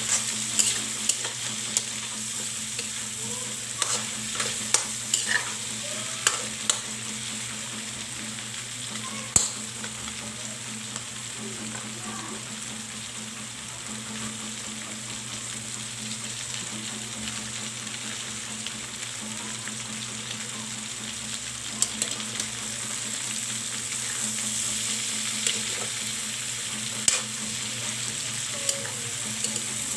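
Food sizzling steadily in a frying pan while being stirred, with scattered sharp clicks and knocks of the stirring utensil against the pan.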